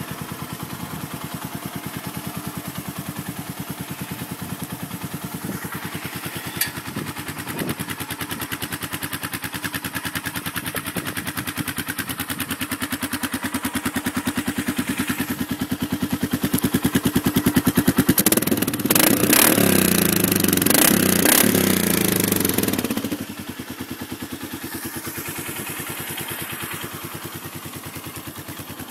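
Polaris Sportsman 500 ATV's single-cylinder four-stroke engine idling with a steady, even pulse. About two-thirds through it runs much louder and fuller for about five seconds, then drops back suddenly to idle.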